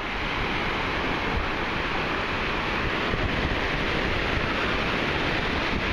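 Steady rush of sea water and wind, with wind buffeting the microphone.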